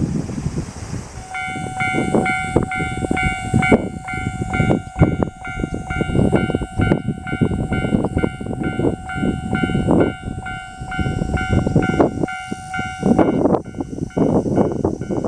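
Japanese railway level-crossing alarm ringing its rapid, evenly repeated electronic two-tone warning, with heavy low rumbling noise underneath. The ringing starts about a second in and its main tone drops out near the end, leaving a fainter ringing.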